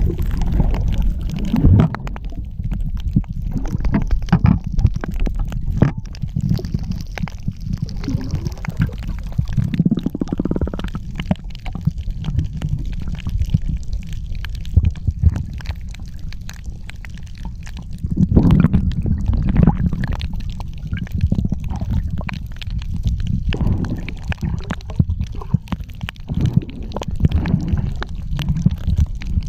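Muffled underwater sound from a camera under the sea: a low rumble and gurgling of water moving around the housing, with fine crackling. It swells louder several times, around ten seconds in, just before twenty seconds and near the end.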